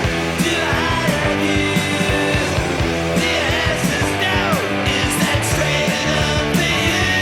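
Rock music with drums, electric guitar and a singing voice, played loud with a steady beat.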